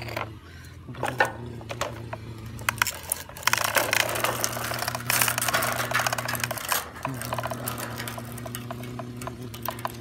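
Clicks, knocks and scraping of a plastic toy truck being handled and pushed over a hard board, over a steady low drone that breaks off twice.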